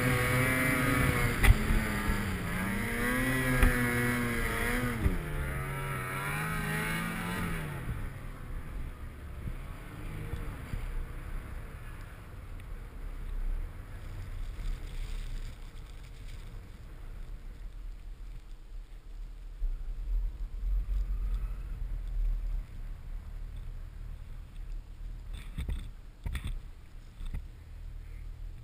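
Snowmobile engine revving, its pitch rising and falling for the first several seconds, then dropping away about eight seconds in to a faint low rumble, with a few sharp knocks near the end.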